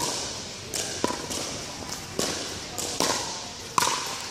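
Pickleball rally: paddles striking the hollow plastic ball, a run of about six sharp pops roughly every half second to second, each echoing in a large indoor hall.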